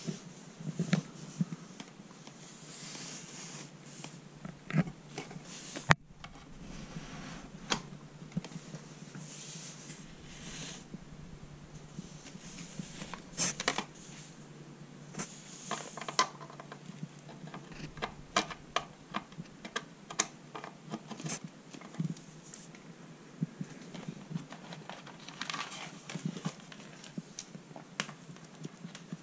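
Handling noise of plastic DIN speaker plugs and their thin cables being sorted and pushed into the speaker sockets on the back of an amplifier: scattered irregular clicks, taps and rustling, with one sharp click about six seconds in.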